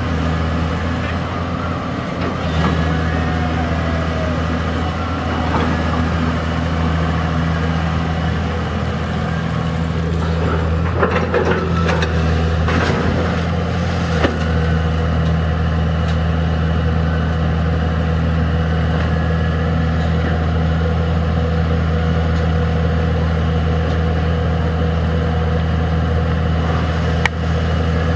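Komatsu PC200 long-arm excavator's six-cylinder diesel engine running steadily while the boom swings and the bucket digs in the water, with a few short knocks about halfway through.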